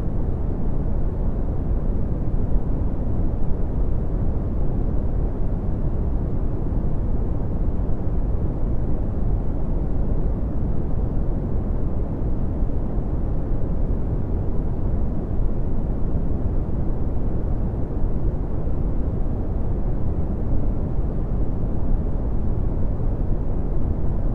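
Red (Brownian) noise: a steady, deep rumbling hiss, strongest in the bass and fading toward the treble, unchanging throughout.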